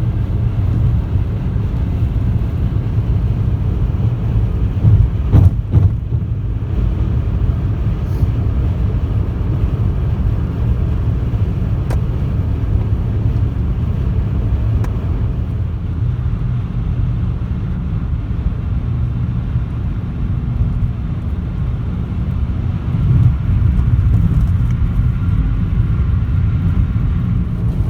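Steady road and engine noise inside a Toyota car cruising at highway speed. The noise gets louder briefly about five seconds in and again near the end.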